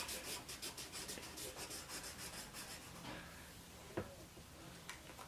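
Felt-tip marker rubbed quickly back and forth on paper in rapid scratchy strokes, fading out about three seconds in; the red marker is not working well, as if drying out. A single light click about four seconds in.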